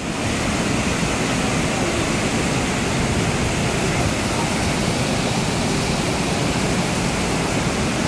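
Waterfall plunging into a rocky pool: a loud, steady rush of falling water.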